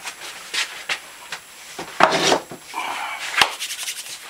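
Rustling and scattered knocks and clicks of a person moving about and handling things, with a louder rustle about two seconds in and a sharp click about a second later.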